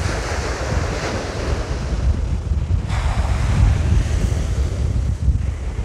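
Sea surf breaking and washing up a sandy beach, with strong wind rumbling on the microphone. The hiss of the wash swells at the start, drops back, then rises again about three seconds in.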